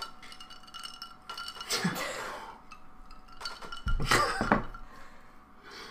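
Loud chewing close to a microphone: a run of small wet clicks and smacks, with louder bursts about two seconds and about four seconds in.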